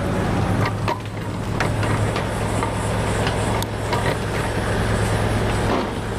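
A heavy machine's engine running steadily with a constant low hum, with scattered sharp knocks and cracks over it.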